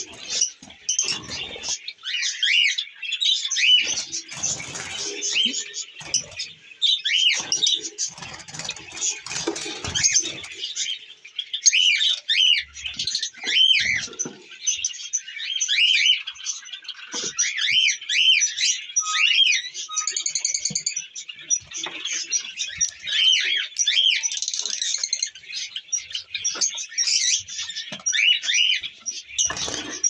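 A flock of small caged parrots (lovebirds, cockatiels and hagoromo budgerigars) chirping without a break: many short, high, arching chirps overlapping one another. Now and then there are knocks and rustles from handling at the cages.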